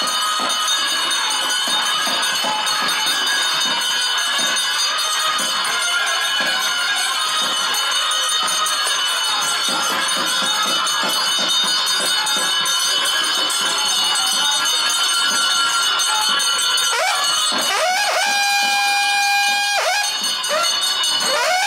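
Devotional ritual music: a wind instrument holds long notes and slides between them near the end, over continuous jingling of bells.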